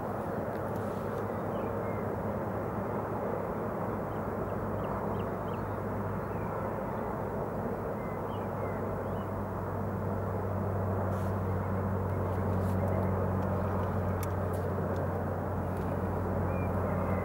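A steady low motor hum, a little louder from about ten seconds in, with faint high bird chirps scattered through it.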